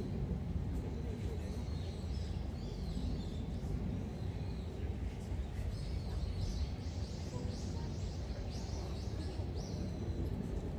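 Outdoor ambience: a steady low rumble with a faint murmur of distant voices, and a small bird chirping in a quick series of short high notes through the second half.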